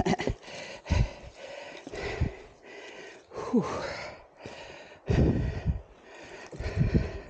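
A man breathing hard in loud, uneven gasps, out of breath from climbing a very steep track. A short falling grunt comes about three and a half seconds in, and low thumps come with several of the breaths.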